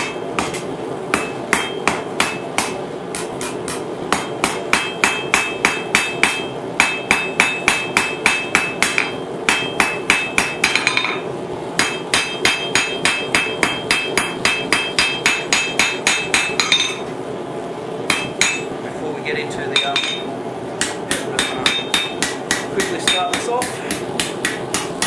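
Hand hammer striking a hot 10 mm steel rod on an anvil, shaping the end into a spoon bowl, in quick runs of about three blows a second with a ring after each blow. The runs break off briefly about eleven and seventeen seconds in, over a steady background hum.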